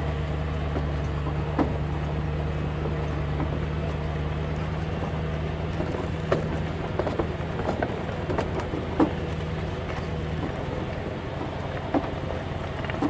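A truck engine running steadily at low speed on a rough dirt road, with scattered knocks and rattles from the vehicle and its load. The engine note changes about ten seconds in.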